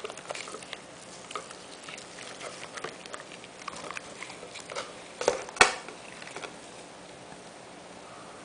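Handling sounds as a block of handmade soap is worked loose from a white plastic mold by hand: scattered small clicks and rustles, with two louder knocks a little past halfway through.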